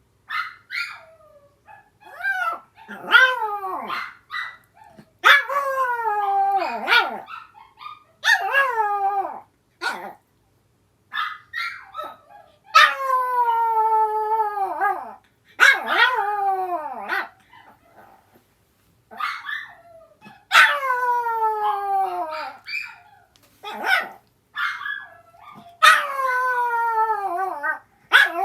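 Small pet dogs howling back and forth: a run of long howls, each falling in pitch and lasting one to three seconds, broken by short yips and barks. The older sister dog is howling in reply to the younger one's calls.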